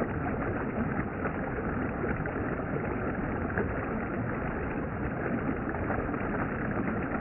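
Steady rushing of a valley stream flowing over rocks.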